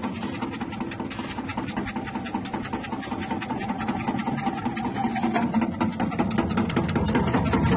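Electric chip-slicing machine running, its small motor spinning the cutting blades with a fast, even chatter as food is pushed down the feed tube and sliced.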